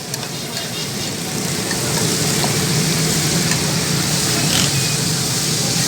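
Steady sizzling of liver frying on a tawa, a flat iron griddle.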